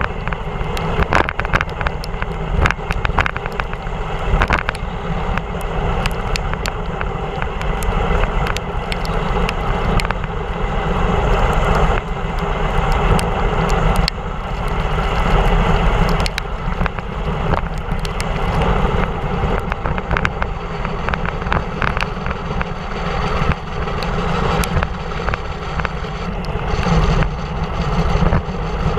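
Wind rushing over a GoPro Hero3's microphone with the hiss of wet bicycle tyres on a rain-soaked road during a fast downhill run, broken by frequent small clicks and knocks from the bike going over bumps.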